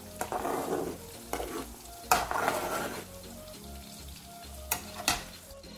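Slotted spatula stirring thick, simmering curry gravy in an aluminium kadai. There are two wet scraping swishes, about half a second in and about two seconds in, and a couple of sharp knocks of the spatula against the pan near the end.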